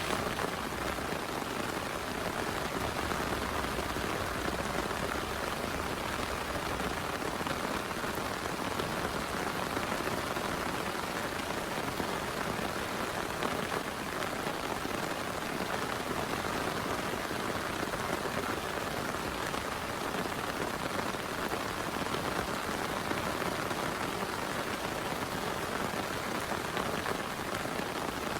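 Heavy rain falling steadily, an even, unbroken hiss with no let-up.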